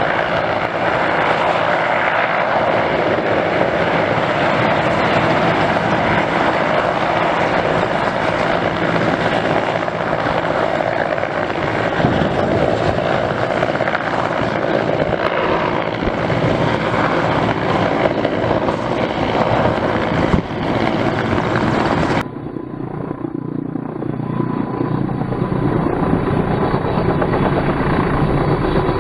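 Mil Mi-8 helicopter hovering, its twin Klimov turboshaft engines whining steadily under the beat of the main rotor. About 22 seconds in the sound turns abruptly duller and a little quieter.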